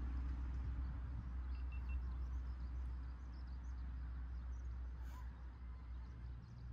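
Quiet outdoor ambience: a steady low rumble that slowly fades, with a few faint, short, high bird chirps, three quick ones about a second and a half in.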